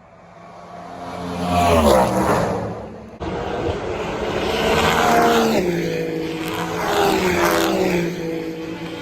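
Race cars passing at speed one after another, each engine note swelling and then dropping in pitch as it goes by. There is an abrupt cut about three seconds in, followed by two or three more cars passing.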